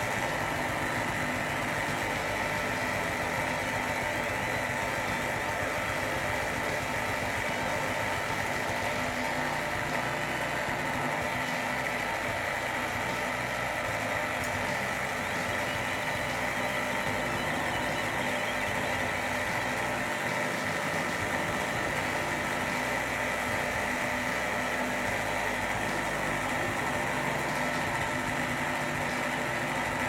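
Washing machine drain pump running with a steady hum but failing to empty the drum: the sump and pump are clogged with silt-like tea sediment from boil-washing tea bags.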